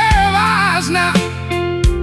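Blues music in an instrumental passage: a lead guitar plays bending, wavering notes over a steady bass backing.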